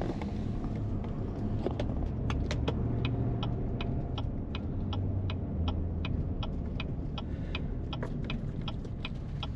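Car on the move: a steady low engine and road rumble, with many short sharp clicks and rattles over it.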